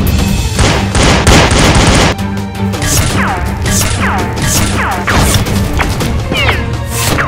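Background soundtrack music with a steady bass line. A loud crash-like noise runs from about half a second to two seconds in, followed by short falling tones about once a second.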